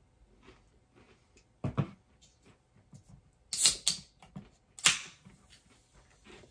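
Chewing a mouthful of fried chicken sandwich, with a few sharp clunks and clicks as an aluminium soda can is handled and set down on a wooden food tray. The loudest clatter comes about three and a half seconds in, and another about five seconds in.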